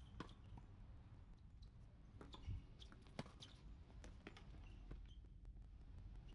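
Faint tennis rally on a hard court: a few sharp knocks of the ball off rackets and court, the loudest about two and a half and three seconds in, with short squeaks.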